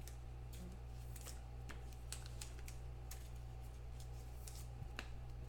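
Trading cards being handled and slid through the hands, giving faint scattered clicks and light scrapes over a steady low electrical hum.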